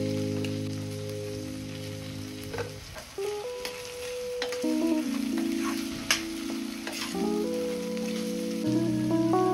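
Vegetables sizzling in a stainless steel kadai while a steel ladle stirs them, clinking against the pan several times. Soft background music with held chords plays over it.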